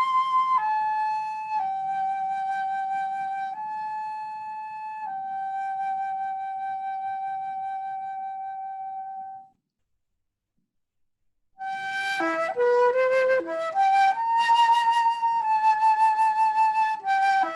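Solo instrumental melody played one note at a time: a slow line ending in a long held note that fades out, a pause of about two seconds, then a livelier run of short notes.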